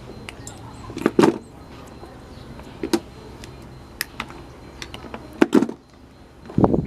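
A series of sharp knocks and clicks, typical of hard parts or tools being handled and set down. The loudest come in pairs, about a second in and again around five and a half seconds.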